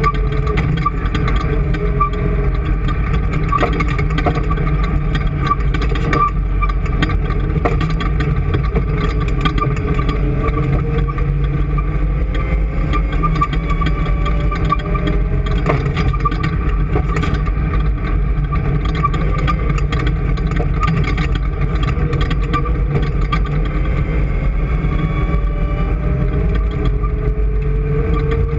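An engine running steadily with a constant low drone. Some tones in it slowly drift up and down in pitch, and frequent light clicks and rattles ride on top.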